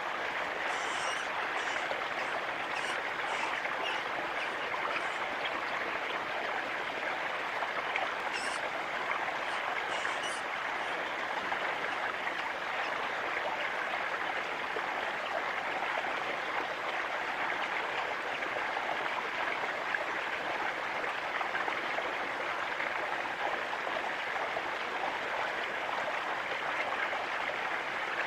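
Steady rushing noise of running water, like a nearby stream, holding an even level throughout. Over roughly the first ten seconds there is a scattered series of short high-pitched chips above it.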